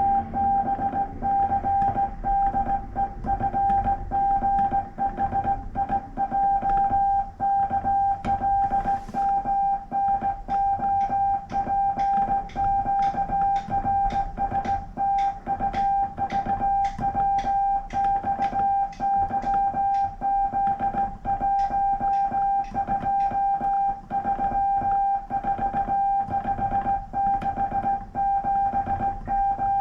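Hand-sent Morse code on a straight key: a steady mid-pitched sidetone beeping on and off in dits and dahs at a brisk pace, with faint clicks of the key's contacts at the strokes.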